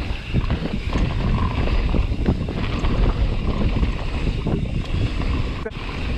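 Wind buffeting the microphone during a fast downhill ride, a continuous low rumble with scattered rattling knocks.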